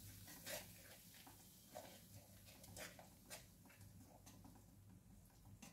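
Near silence with faint, scattered pops and ticks from masala frying in mustard oil in a steel kadhai.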